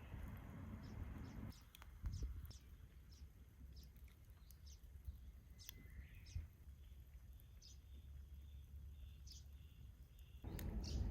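Small birds chirping: short, high chirps repeating every half second or so, faint, over a low steady rumble.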